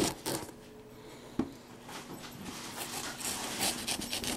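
A key slitting and ripping the packing tape on a cardboard box, in short scraping, tearing bursts against the cardboard, with a sharp knock about a second and a half in.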